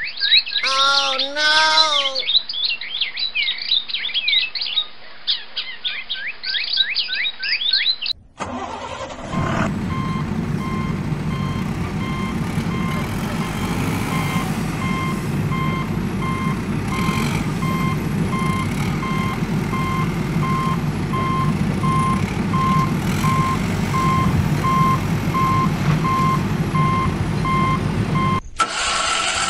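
For the first several seconds, small birds chirping in quick short calls. Then a truck engine runs steadily with a reversing alarm beeping over it at an even rate, stopping near the end.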